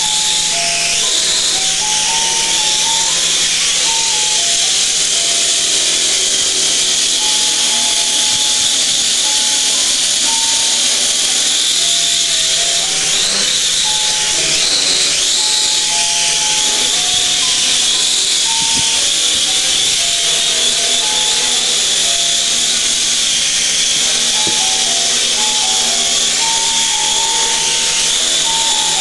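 Small quadrotor's propellers and motors whirring in a steady hover, a loud high hiss whose pitch wavers a little about halfway through. A simple electronic tune of single notes plays over it.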